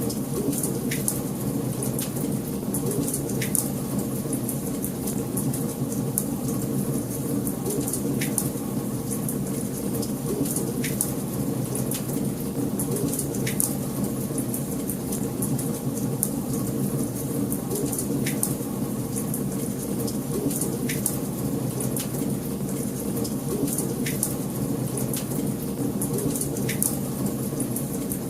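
Wood fire burning in a fireplace: a steady low rush of flame with sharp crackles and pops scattered through it, a few a second.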